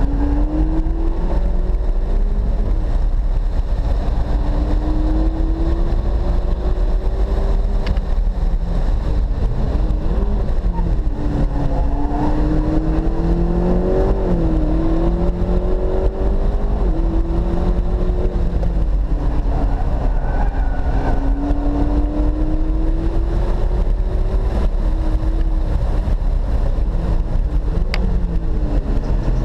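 McLaren 650S's twin-turbo V8 heard from inside the cabin while lapping a track, its note climbing steadily under acceleration and dropping back sharply several times, over a steady low rumble.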